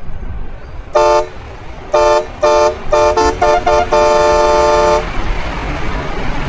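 Custom truck horn playing a rhythmic run of short chord blasts, with a change of note partway, ending in a held blast about a second long, over the low rumble of the road.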